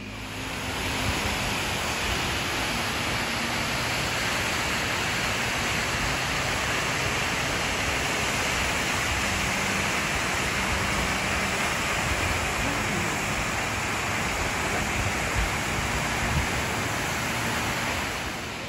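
A waterfall's steady rush of falling water. It comes in about half a second in and eases off near the end.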